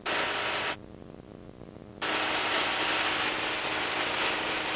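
Aircraft radio static heard over the headset audio: a short burst of hiss at the start and a longer, steady one from about two seconds in that cuts off near the end, with no voice in it.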